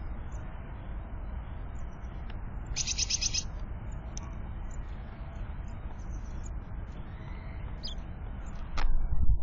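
Small songbirds at a window feeder chirping with short, high calls, with a quick run of rapid notes about three seconds in. Near the end comes a loud knock with a sharp click, the loudest sound.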